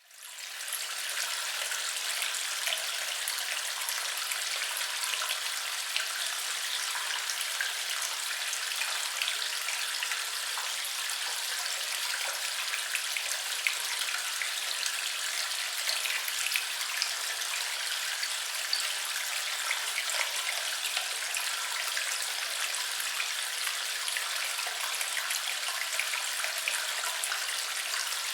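Water trickling and splashing steadily, with a dense patter of small droplets and splashes. It fades in over the first second or so.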